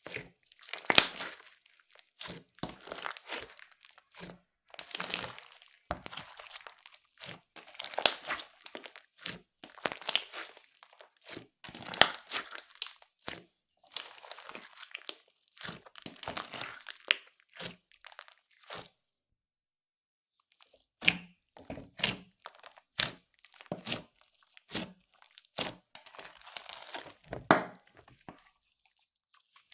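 Hands squeezing and stretching clear slime, making wet crackling and popping in uneven bursts. After a short break about two-thirds of the way through, the pops come sparser and sharper, like small air bubbles bursting.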